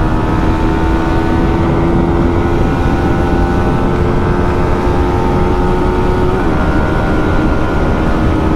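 Yamaha R15M's 155 cc single-cylinder engine running at highway speed, about 108 km/h, a steady engine note over wind rumble on the microphone. The pitch creeps up slowly, dips about six seconds in at a gear change, then holds steady a little lower.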